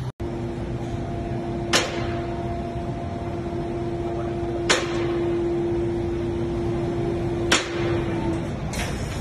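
Mercedes-AMG GT Black Series's 4.0-litre twin-turbo V8 running with the car up on a workshop lift: a steady hum with a held tone, broken by three sharp cracks about three seconds apart.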